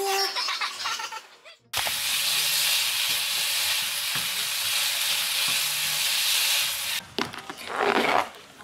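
Vegetable pancakes and japchae sizzling steadily in a frying pan on a gas stove as they reheat, stirred with chopsticks. The sizzle cuts off about seven seconds in and is followed by a few light clatters of a plastic container lid being taken off.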